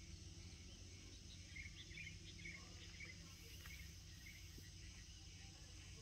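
Faint outdoor ambience at near silence: a steady low rumble and hiss, with a few soft, short high chirps from about one and a half to three seconds in.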